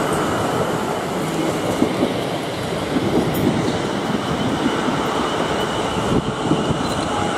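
Twelve-car South Western Railway Class 450 Desiro electric multiple unit running past, a steady, unbroken noise of wheels on rail.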